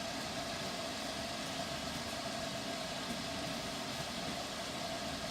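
Hood hairdryer running steadily: an even rush of blown air with a constant hum.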